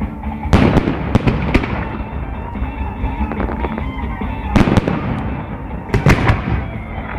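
Fireworks bursting overhead in three clusters of sharp bangs and crackles: about a second in, near five seconds, and around six seconds. Music plays steadily underneath.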